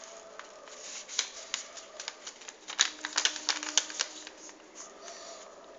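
A sheet of paper being folded into a triangle by hand and creased, rustling with a flurry of quick crinkly ticks through the middle few seconds.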